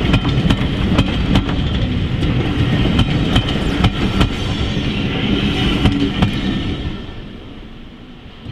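Passenger train passing close by, its wheels clicking over the rail joints amid a loud running rumble. The sound starts to fade about seven seconds in as the train draws away.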